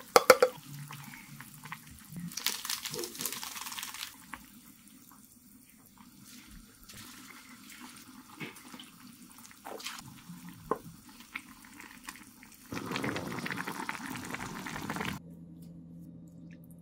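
Canned sardines and their sauce poured into a pot of simmering soup. A quieter stretch follows with scattered light clicks of a spatula, then about two seconds of louder liquid sloshing as the broth is ladled out.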